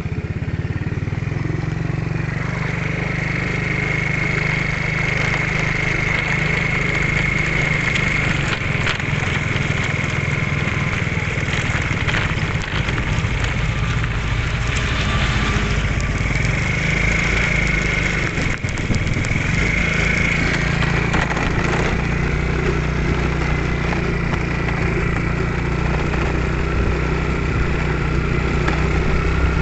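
Small motorcycle engine running steadily while riding over a rough, unpaved road, with scattered knocks and rattles from the bumps. A high whine rises over it for a few seconds at a time.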